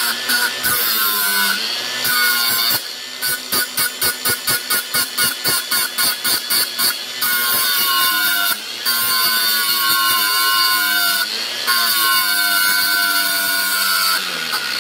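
Angle grinder with a thin slitting disc grinding the rivet heads off the pins of a motorcycle O-ring drive chain link, to split the chain: a high motor whine that dips and rises as the disc bites the steel. A few seconds in, the disc is dabbed against the pin in rapid pulses, about three to four a second, before steady grinding resumes.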